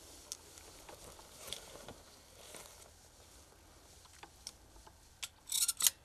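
Faint scattered rustles and clicks of dry brush being brushed, with a short burst of louder crackling rustle near the end.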